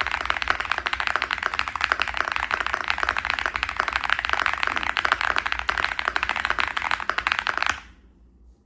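Fast typing on a mechanical keyboard with Gateron Beer tactile switches, an FR4 plate with full foam and GMK keycaps: a dense, continuous run of loud, medium-pitched keystroke clacks that stops abruptly near the end.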